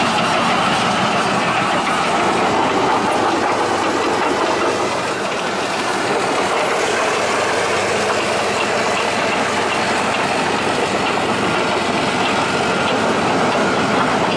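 Leopard 2 main battle tank's diesel engine running, with a steady clatter of its steel tracks as it drives by.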